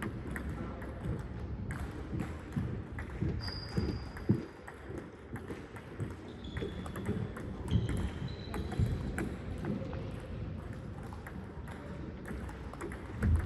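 Table tennis play: the ball clicking irregularly off paddles and table, with a few short high squeaks, typical of shoes on a hall floor.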